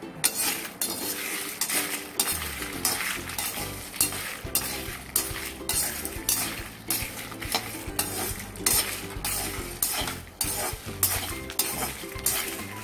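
Metal spatula stirring and scraping whole spices and dry red chillies around a dry metal kadai, in regular strokes about two a second, while the spices dry-roast without oil.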